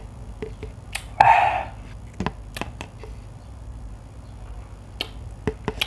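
Someone finishing a cup of instant noodles: light clicks and taps of a plastic fork against the noodle cup, and a loud half-second slurp of the broth just over a second in, followed by more scattered taps.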